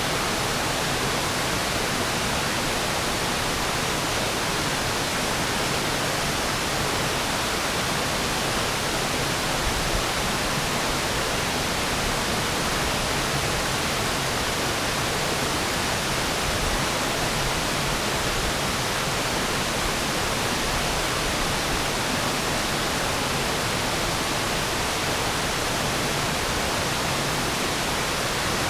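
Waterfall, water pouring over the falls in a steady, unbroken rush that spreads from low to high pitches and does not change.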